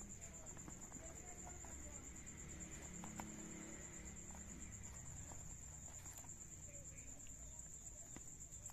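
Crickets trilling steadily, a faint continuous high-pitched chirring, with a few soft taps from a small cardboard box being handled.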